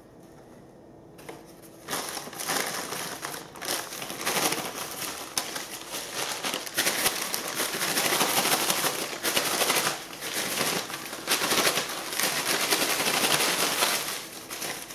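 A brown paper bag being shaken hard with chopped okra and cornmeal inside, to coat the okra: a busy dry rattle and paper crinkle that starts about two seconds in.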